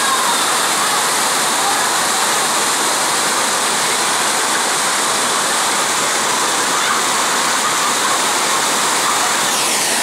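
Waterfalls pouring onto rock and into a pool: a loud, steady rush of falling water.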